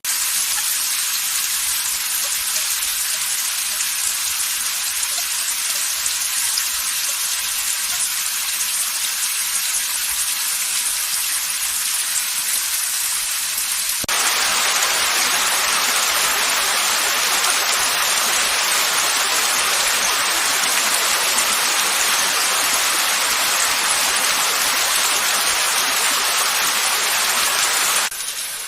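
Steady rain hiss, a dense even patter. About halfway through it switches abruptly to a fuller, slightly louder downpour, which cuts back to a quieter rain sound just before the end.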